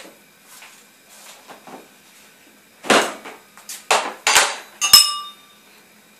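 Plastic lid of a flour tub being prised off and handled, a short run of loud clattering knocks about three to five seconds in, ending in a sharp, ringing metallic clink.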